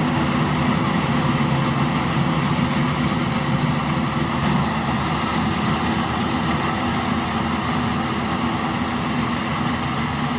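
DR 40 E combine harvester running steadily, a dense mechanical engine drone.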